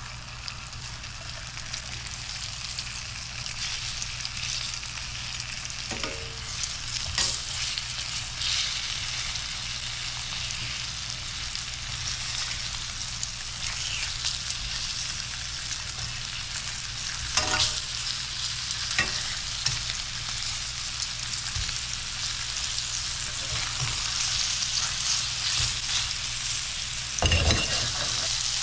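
Floured trout fillets frying skin side down in hot oil in a pan: a steady sizzling hiss that slowly grows louder. A few sharp knocks come through it, the loudest near the end.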